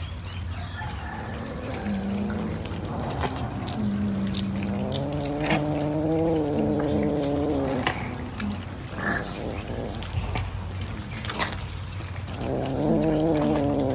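Cats feeding from a tray of raw fish, with one cat giving a long, low, wavering call of about three seconds midway and a shorter one near the end, among scattered small clicks.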